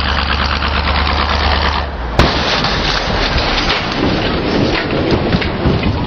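A car driven flat out, its engine running hard under a loud rushing rumble; about two seconds in, one sharp bang as it smashes into a burning refrigerator standing in its path, and the rumble carries on after the impact.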